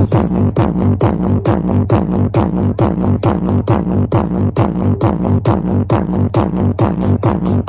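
Electronic dance music with a hard, fast, even kick-drum beat and heavy bass, played loud through a large outdoor sound system's stacked loudspeaker cabinets.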